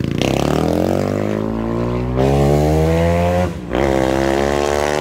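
Modified Honda Twister motorcycle engine, bored out with a BMW F800 piston, accelerating hard away from a standstill. Its revs climb and break at each upshift, about two and about three and a half seconds in.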